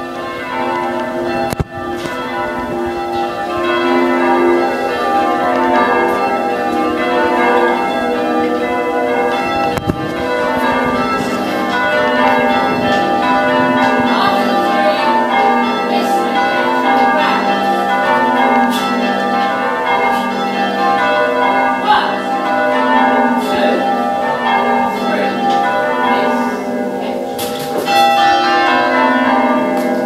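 A ring of six church bells being rung in changes. The bells strike one after another in rapid, repeating runs that step down in pitch.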